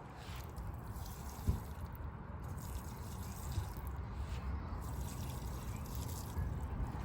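Water trickling and dripping.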